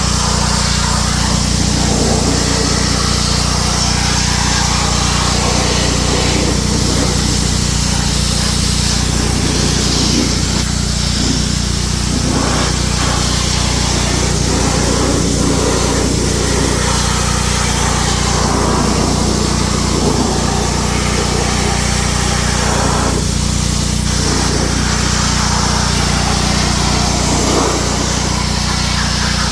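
A motor-driven tool or small engine running steadily without a break, with a constant low hum under a noisy whir.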